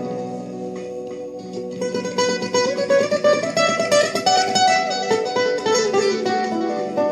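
Solo classical guitar playing a fingerpicked melody. It is softer for the first second or so, then moves into a run of quick plucked notes.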